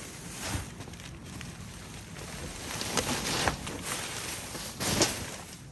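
Rummaging through trash in a dumpster: several short rustles and knocks as items are shifted, about half a second, three, three and a half and five seconds in, over wind buffeting the microphone.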